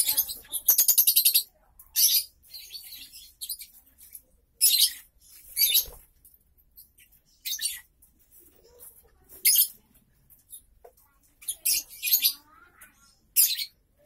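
Lovebirds giving short, shrill chirping calls every second or two, with a quick run of calls about a second in.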